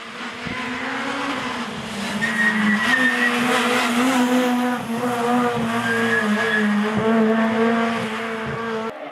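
Ford Fiesta rally car's engine running hard as it drives past, growing louder and at its loudest through the middle, the engine note stepping up and down with the throttle and gear changes. Two brief high squeals ride over it, and the sound cuts off suddenly near the end.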